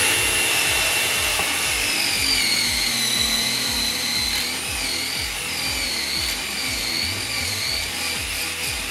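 Power drill running with a steady high whine, its pitch sagging slightly about two seconds in as the bit bites, boring out access holes in the crypto miner's housing.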